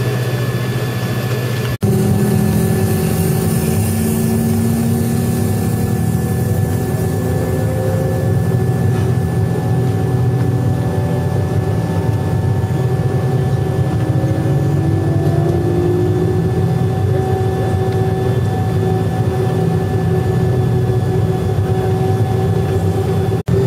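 Airliner's jet engines at low thrust during taxi, heard inside the cabin: a steady low rumble under a steady high whine and several tones that drift slowly in pitch. The sound breaks off sharply about two seconds in and comes back louder, and breaks again briefly near the end.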